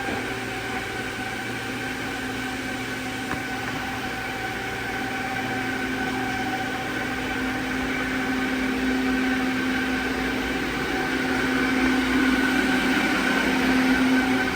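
Leadwell LTC-50BXL CNC lathe running under power: a steady machine hum with a few held tones. It grows a little louder toward the end.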